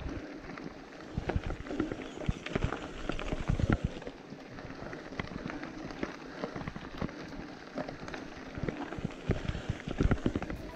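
Mountain bike riding up a loose gravel track: the tyres crunch and crackle over the stones, with irregular knocks and rattles from the bike.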